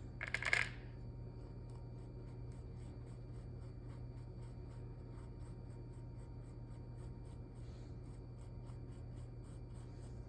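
Paintbrush strokes scratching faintly and regularly on canvas, a few strokes a second, over a low steady hum, with one brief louder rustle about half a second in.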